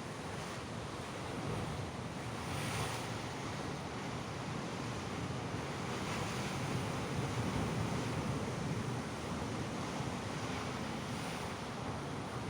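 Sea waves breaking and washing on the shore in a continuous rush of surf, swelling a little louder twice.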